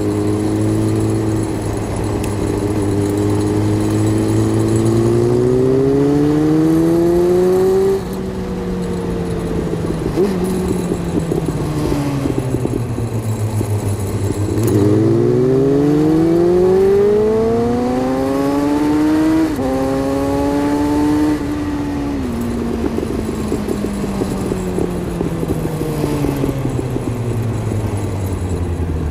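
Suzuki Bandit GSF 600 S inline-four with an aftermarket Takkoni exhaust, heard through a phone under the seat, pulling up through the revs. About eight seconds in it drops suddenly at a gear change and winds down. It then climbs again, shifts once more, and falls away off the throttle.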